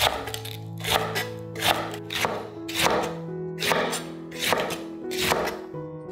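Chef's knife shredding cabbage on a wooden cutting board: a steady run of crisp slicing strokes, a little more than one a second, each ending in a knock of the blade on the wood, over background music.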